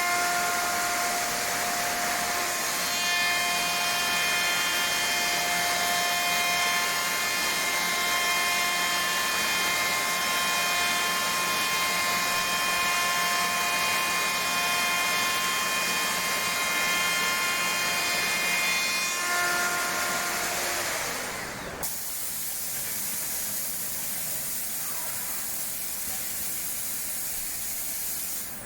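SAOMAD Woodpecker JUST 3500 CNC machining centre running: the spindle's whine of several steady tones over the noise of machining wood. The whine winds down and stops about three-quarters of the way through, leaving a steady hiss.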